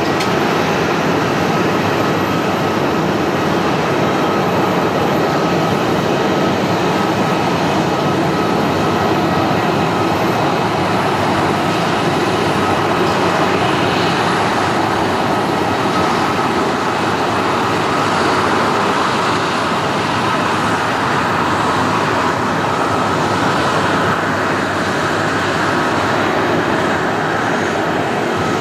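Boeing C-32A (military Boeing 757-200) taxiing on its two Pratt & Whitney PW2040 turbofans at low power: a steady jet engine noise with a thin, high whine held throughout.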